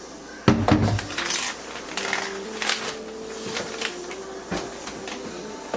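Kitchen items being handled as a garlic powder container is fetched and opened: a loud knock and clatter about half a second in, then a series of smaller clicks and knocks.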